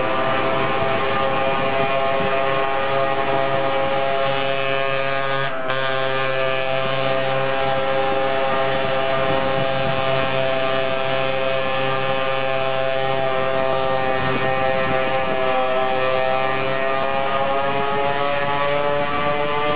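50cc two-stroke scooter engine running at steady, high revs while riding, heard from on board. It briefly dips about a quarter of the way in. About three quarters through, its pitch sags slightly and then climbs again.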